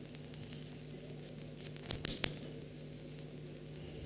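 Steady low electrical hum from the sound system, with scattered faint ticks and a few sharper clicks about two seconds in.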